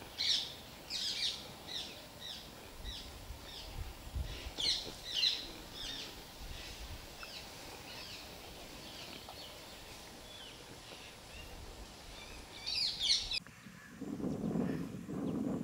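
Wild birds calling: a quick series of short, high, down-slurred chirps for the first several seconds, thinning out, then a brief burst again just before a lower, different sound takes over in the last two seconds.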